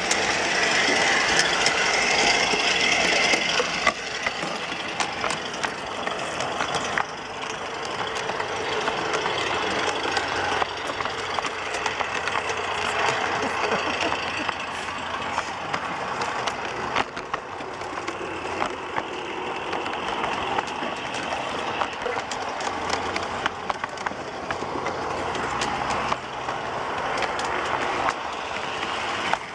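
G-scale model VW bus draisine running along garden railway track: its small electric drive runs steadily, with scattered clicks, louder for the first four seconds or so.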